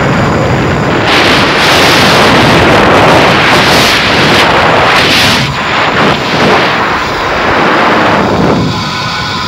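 Wind rushing hard over the microphone on a fast zip line ride, loud and gusting in surges, easing near the end.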